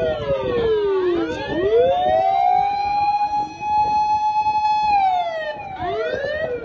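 Fire engine siren wailing slowly: the pitch holds high, falls for about a second and a half, climbs back and holds, then falls again near the end. Fainter, quicker rising sweeps of a second siren overlap it near the end.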